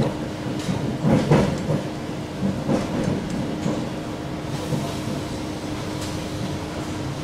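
Commuter electric train heard from inside the carriage, running over the track: steady wheel-on-rail rumble with a constant motor hum and several sharp wheel clacks over the rails in the first three seconds. The noise takes on more hiss from about halfway as the train enters a tunnel.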